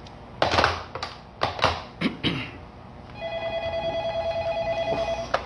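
Phone ringing with an incoming call: a steady, rapidly pulsing ring tone for about two seconds, starting about three seconds in. Before it come a few short knocks and taps.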